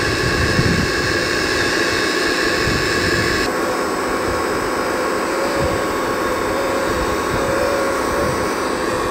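Electric hydraulic pump of a radio-controlled hydraulic excavator whining steadily under a hiss while the boom and bucket move. The higher part of the whine drops out about three and a half seconds in.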